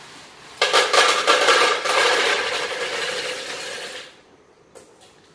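Dry, hard sun-dried badi (lentil dumplings) sliding off a steel plate into a plastic container: a dense rattle of many small pieces, starting under a second in and dying away after about three seconds.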